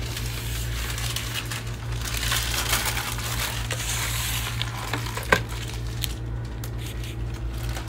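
Paper receipts and coupons rustling as they are handled at a store checkout counter, with one sharp click about five seconds in, over a steady low hum.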